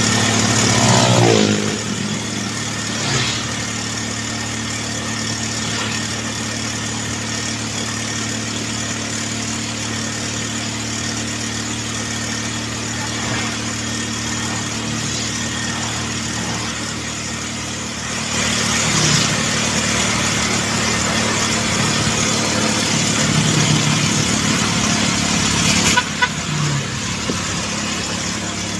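Motorcycle engine running steadily under way, with wind and road noise; about a second in its pitch drops as it eases off. A few brief louder rushes of noise come later.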